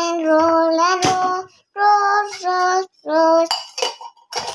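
A child singing long, held notes in several short phrases, with a few sharp clicks and knocks of kitchen utensils between them.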